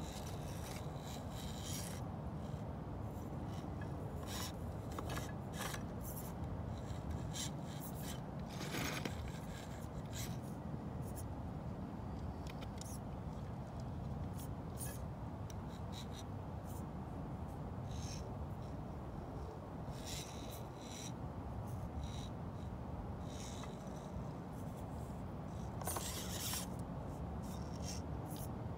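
Axial SCX24 micro RC rock crawler working slowly over broken clay roof tiles: irregular scraping and clicking of its tyres and chassis on the tile, over a steady low hum.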